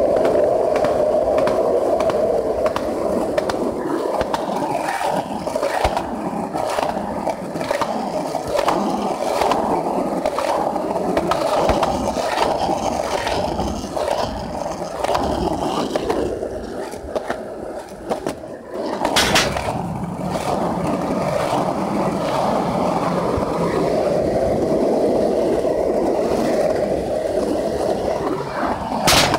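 Skateboard wheels rolling steadily over a concrete path, a continuous rolling hum with many small clicks. The roll eases off briefly about eighteen seconds in, with a sharp knock just after and another near the end.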